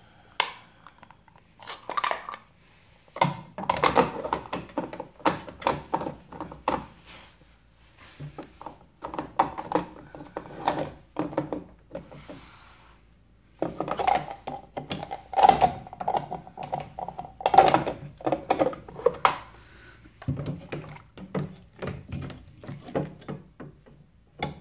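Plastic knocks and rattles as the drain-pump filter cap at the base of a Panasonic NA-168VG2 front-loading washing machine is handled and turned, ending with a sharp snap as the plastic service flap is shut.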